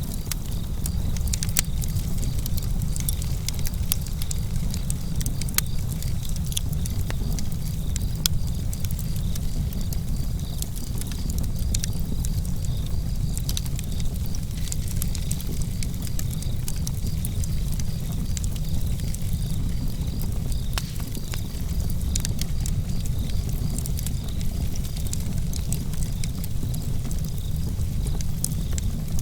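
Wood fire burning in a fireplace: a steady low rumble with frequent small, sharp crackles and pops.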